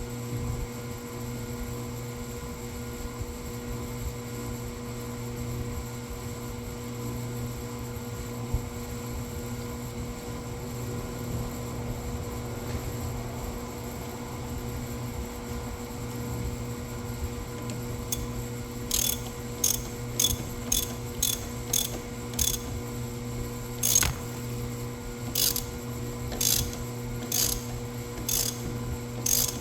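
Steady mechanical hum. About two-thirds of the way in, a ratchet wrench starts clicking in short strokes, roughly one or two a second, as bolts are worked on during an engine/transmission mount install.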